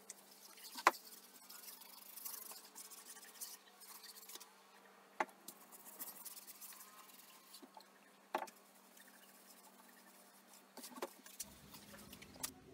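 Cloth wiping a liquid finish onto a wooden box: faint rubbing strokes, with a handful of sharp clicks scattered through.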